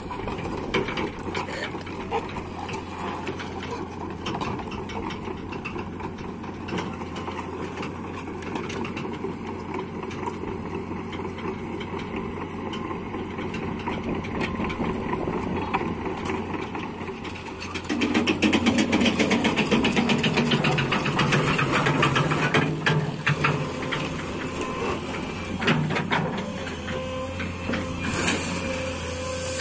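LiuGong crawler excavator's diesel engine running with a steady low hum, growing louder about two-thirds of the way through as the machine works. Scattered clicks and a hiss of gravel come near the end as the bucket digs into the pile.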